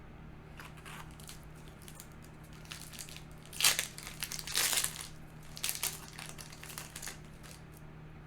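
Foil booster pack wrapper crinkling as it is handled and opened, in a run of rustling bursts a few seconds in, loudest near the start of the run. A faint steady low hum lies underneath.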